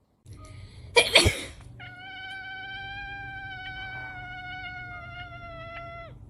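Domestic cat giving one long, drawn-out yowl at a nearly steady pitch for about four seconds, cutting off abruptly near the end. It follows a short, loud rasping burst about a second in.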